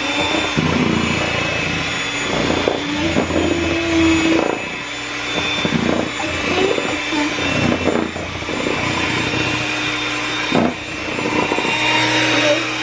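Electric hand mixer running steadily, beating cake batter in a bowl.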